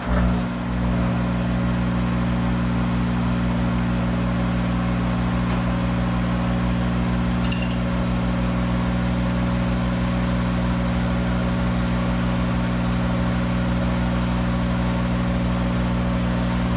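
Monarch 10EE toolroom lathe running steadily in reverse, an even machine hum made of several steady tones. A faint tick comes about seven and a half seconds in.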